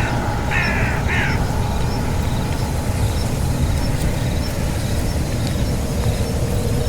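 Two short calls from a bird, in quick succession in the first second and a half, over a steady low rumble.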